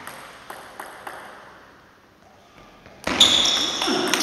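Table tennis rally: the ball clicks off bats and table, faint at first and louder in the last second or so.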